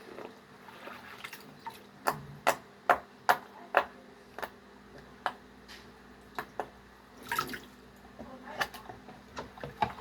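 Water dripping and small splashes in a sink as fidget toys are washed: a quick run of about five sharp drops around two seconds in, then scattered single drops.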